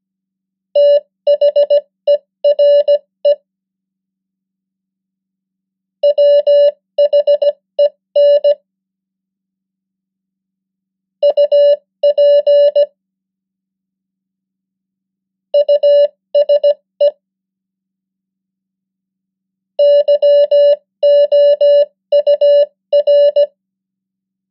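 A single steady tone of about 600 Hz keyed on and off as Morse code (CW) at 15 words per minute. It spells out five common English words one at a time, each a quick cluster of dots and dashes followed by a gap of two to three seconds, for word-copying practice.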